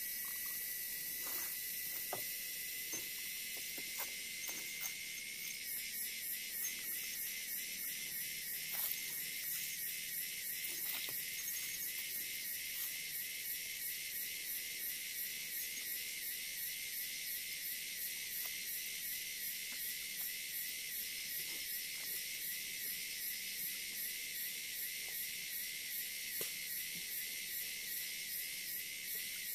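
Chorus of forest insects: a steady high shrill hum, joined about five seconds in by a fast, evenly pulsing insect call that keeps going, with a few faint knocks early on.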